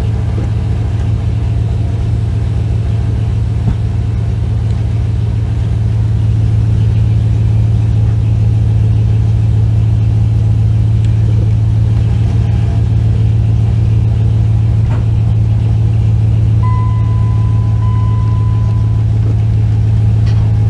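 Dodge Ram pickup engine idling steadily, a little louder from about six seconds in. A steady electronic beep sounds for about two seconds near the end.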